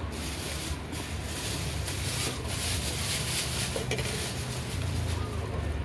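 A man slurping a mouthful of Thai boat noodles off chopsticks: a long, uneven sucking noise that swells and eases in pulses.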